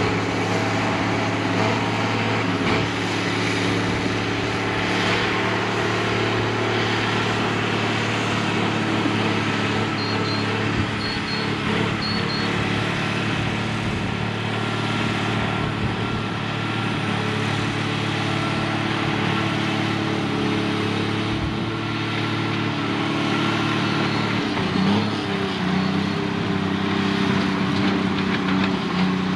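Diesel engine of heavy earthmoving equipment running steadily under work, its note shifting up about 25 seconds in. Three faint short high chirps sound around the middle.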